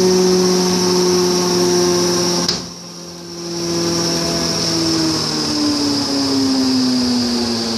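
1944 Buss 4L 24-inch planer running, a steady machine hum with a high hiss above it. About two and a half seconds in there is a sharp click and the sound briefly dips, then the hum comes back and slowly falls in pitch.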